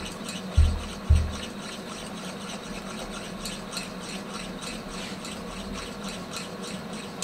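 A utensil stirring a cheese sauce around a stainless steel saucepan on an induction hob, with light metallic ticks about three times a second over a steady low hum. Two short dull thumps, about half a second apart, come near the start and are the loudest sounds.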